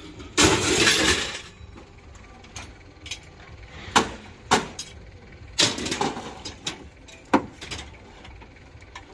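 A handful of loose steel nuts and bolts tipped into a metal container with a loud clatter about half a second in, followed by several single sharp metal clanks as scrap pieces are handled and dropped.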